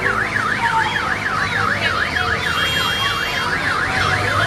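Electronic siren sweeping rapidly up and down in pitch, about three rises a second, with a brief high steady tone sounding over it about halfway through.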